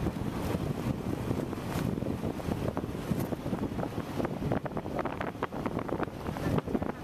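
Vehicle driving along an unpaved dirt and gravel road: a rough, continuous rumble with wind buffeting the microphone and frequent small knocks.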